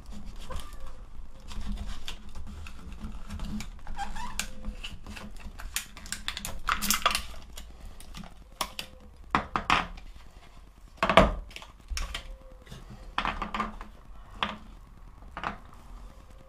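Stiff plastic blister packaging being cut and pried open with a folding knife: a run of crackles, scrapes and sharp clicks, with one loud clack about eleven seconds in.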